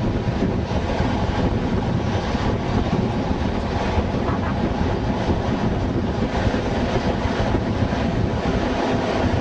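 Class 421 (3-CIG) slam-door electric train running at speed, heard from an open window: a steady rumble of wheels on rails with clattering over the rail joints, and wind on the microphone.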